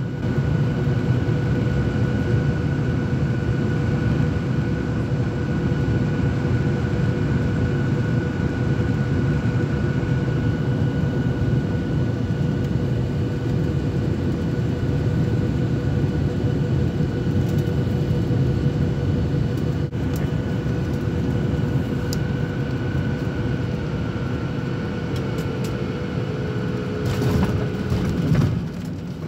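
Cabin noise of a Boeing 737-800 on final approach: its CFM56 jet engines and the airflow make a steady low rush with a faint steady whine above it. Near the end a brief louder burst of noise comes as the aircraft reaches the runway.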